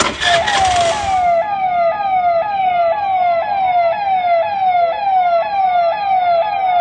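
Mobile phone ringtone imitating a police siren: a loud tone that falls in pitch and jumps back up about twice a second, over and over. A burst of noise comes just as it starts.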